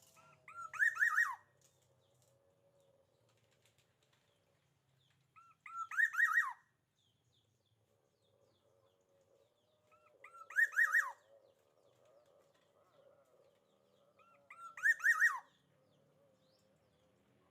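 Bird calling in four short bursts, each a quick run of harsh, arched notes ending on a falling note, repeated about every four and a half seconds.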